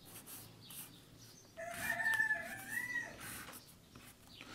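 A rooster crowing once, faintly, a drawn-out call of about a second and a half.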